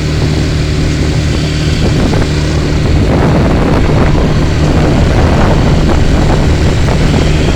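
ATV engine running steadily while it is ridden, over a rushing noise. The sound grows louder about three seconds in.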